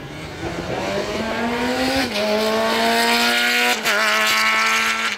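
Hill-climb race car accelerating hard as it comes closer, its engine note rising and getting louder, then dropping back briefly at two upshifts about two and four seconds in.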